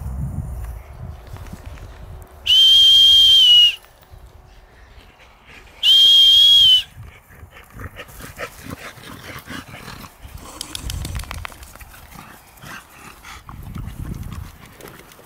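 Two long, steady, high whistle blasts, the first about a second long and the second slightly shorter, a signal for the dogs to come. Softer rustling and scuffling follows as the bulldogs run through the grass.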